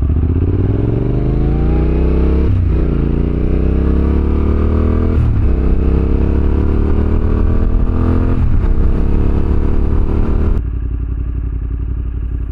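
Yamaha Ténéré 700's parallel-twin engine pulling hard through the gears: the revs climb, dip briefly at three upshifts and climb again. Near the end the throttle closes and the sound drops to a lower, steady note.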